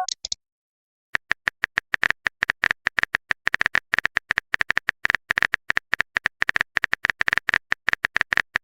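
Phone keyboard typing sound effect: a rapid, irregular run of short clicks, several a second, starting about a second in and going on to the end.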